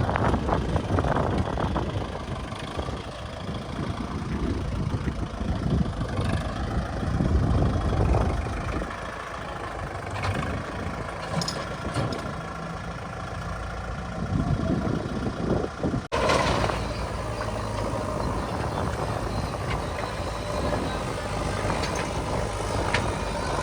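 Diesel engine of a JCB 3DX backhoe loader running and working while loading a tractor trolley, a steady low rumble with a sudden break about two-thirds of the way in.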